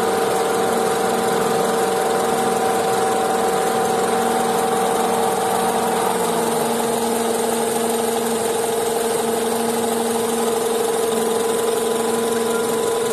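Honda CR-V engine idling with the radiator cooling fan running, a steady mechanical hum whose tones shift about six seconds in. Under it is a faint abnormal noise, later traced to the serpentine belt tensioner pulley.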